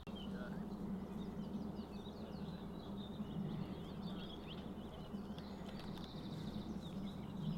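Many small birds chirping and singing, over a steady low background rumble.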